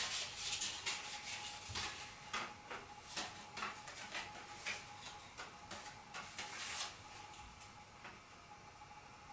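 Paper playing cards being handled: a run of short rustles and clicks as cards are slid apart and flicked in the hands, dying away about seven seconds in.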